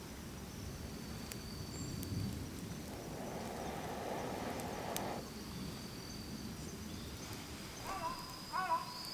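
Wood bonfire burning with a low hiss and a few sharp crackles and pops. Near the end come a few short chirping calls.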